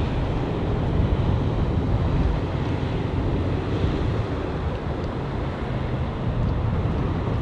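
Wind buffeting the microphone over a steady low outdoor rumble.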